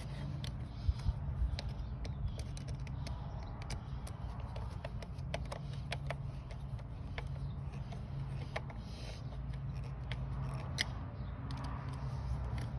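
Scattered small clicks, creaks and scrapes of a rubber breather hose being pushed on and its hose clamp being screwed tight by hand with a screwdriver, over a steady low hum.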